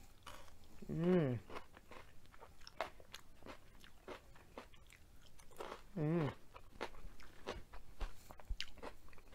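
Close-up crunching and chewing of raw yellow bell pepper strips dipped in sauce: many short crisp crunches. Two short hummed "mmm"s of enjoyment come about a second in and around six seconds in.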